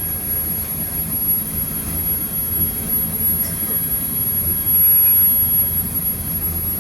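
Fishing boat's engine running steadily under way, a continuous low rumble.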